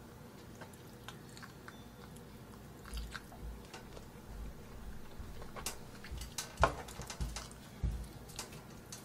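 Faint sounds of a person eating Andong jjimdak (braised chicken with glass noodles), chewing and biting, with scattered small clicks of chopsticks on the plate and a few soft knocks.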